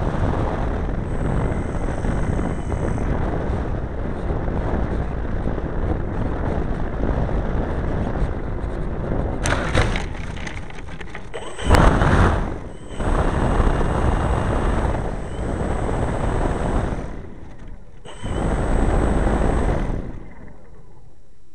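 Large RC model airplane's engine, heard from on board, running steadily as the plane rolls over rough dirt, then blipped up in three bursts of throttle as it taxis, before dropping to a low idle near the end.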